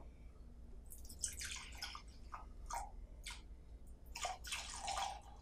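Ultrasonic cleaning concentrate being poured into water in an ultrasonic cleaner's tank: a thin, faint stream trickling and splashing, then a few separate drips, with another short run of pouring near the end.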